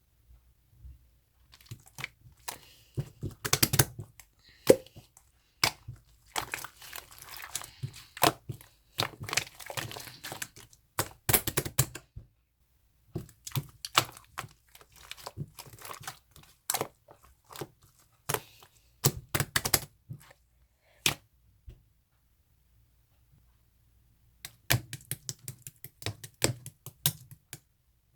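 Red marbled slime being squished and stretched by hand, making irregular sharp clicks and crackles. There is a short pause about halfway and a longer quiet stretch before the last few seconds.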